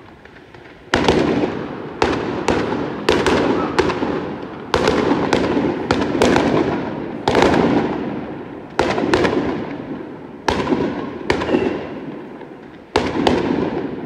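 Aerial fireworks going off in a rapid string: loud bangs about every half second to second from about a second in, each ringing out and fading, with a short lull shortly before the end.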